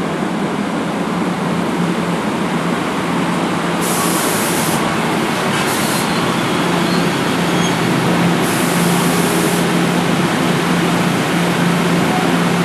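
NJ Transit ALP-46A electric locomotive and its passenger cars rolling slowly past at close range: a steady low hum over running noise. Brief high-pitched hisses come about four seconds in and again at about eight and a half seconds.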